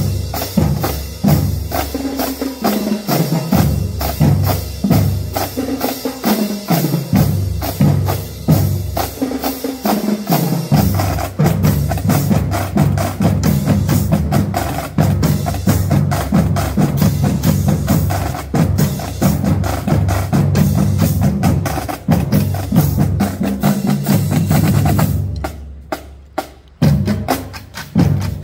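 Marching drum line of snare, tenor and bass drums playing a cadence with dense, rapid strokes. About three seconds before the end it drops briefly to a few light strokes, then comes back in.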